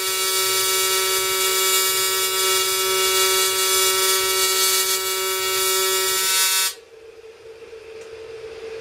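AC TIG arc from an Everlast 210EXT welding aluminum, a steady high-pitched buzz set by the 200 Hz AC frequency. The arc cuts off suddenly near the end, leaving only a faint hum.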